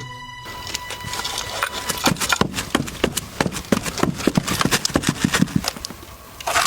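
Hollow clip-clop knocks like trotting horse hooves, several a second and uneven, made as a sound effect.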